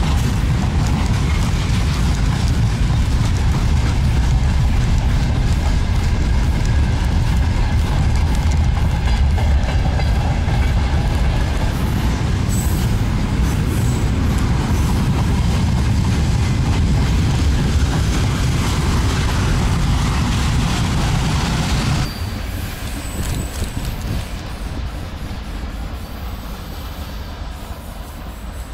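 Train running on rails: a loud, steady rumble and rattle of the wheels and cars, which drops off suddenly about three-quarters of the way through and carries on more quietly.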